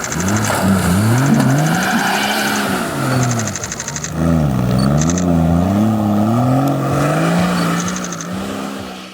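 Range Rover 4x4 engine revving up and down again and again while driving off-road, its pitch rising and falling every second or so, with short bursts of rapid high ticking over it. It cuts off suddenly at the end.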